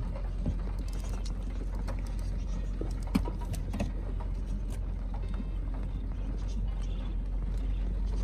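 Car engine running steadily, heard from inside the cabin, with scattered sharp clicks and taps from wild budgerigars landing on and fluttering against the bonnet and windscreen.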